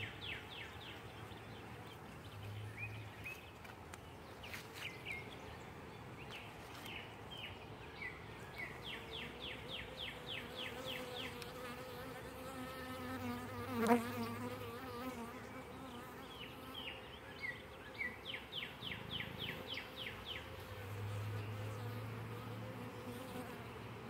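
Honeybees buzzing steadily around an open hive, from a colony that is very defensive. About two-thirds of the way through, one bee flies close past the microphone, rising and falling in pitch, the loudest moment.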